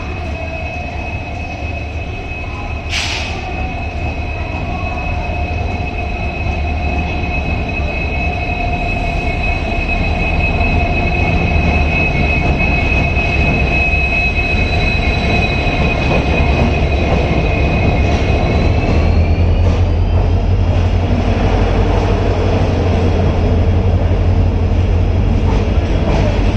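WDP4D diesel-electric locomotive, with its EMD two-stroke V16 engine, hauling a Rajdhani Express train into a station. A deep engine rumble grows steadily louder as the train approaches, under a steady high-pitched whine that steps up in pitch about two-thirds of the way through. A single sharp crack comes a few seconds in.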